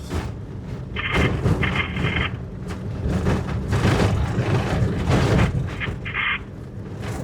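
Heavy rumble and irregular jolting bangs and rattles of a vehicle driving over a rough, corrugated dirt road.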